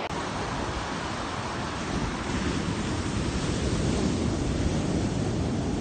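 Ocean surf breaking and washing up a sandy beach, a steady rushing that grows a little louder about two seconds in.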